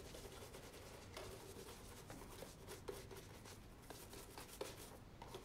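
Faint rubbing and rustling of a football boot being polished and handled by hand, with a few soft ticks, over quiet room tone.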